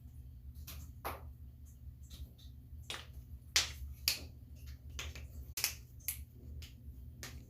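Joints cracking: a dozen or more sharp pops in an uneven series, the two loudest near the middle, over a low steady hum.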